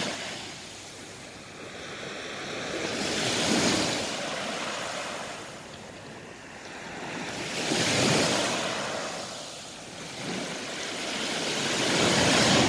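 Small Black Sea waves breaking and washing up a sand beach, the surf swelling and fading three times, about every four seconds.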